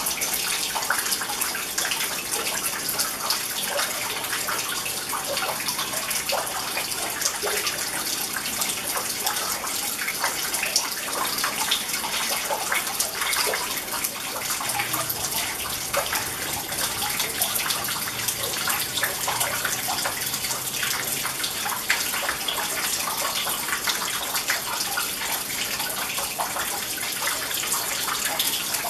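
Decorative rock water fountain: a thin stream of water falling and splashing steadily into a shallow stone pool, with a constant trickle full of small drop ticks.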